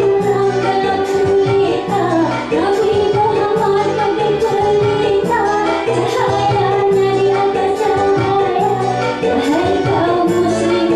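Women singing a slow melody with long held notes over instrumental accompaniment with a steady beat.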